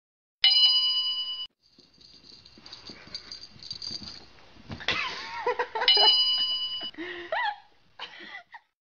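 A bright bell chime sound effect marking a point scored about half a second in, then scuffling and a cat's short cries, a second identical chime about six seconds in, and more brief cat cries near the end.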